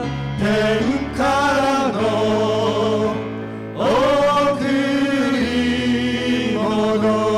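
Men's vocal group singing a Japanese gospel song into microphones, with musical accompaniment. It ends on a long held chord.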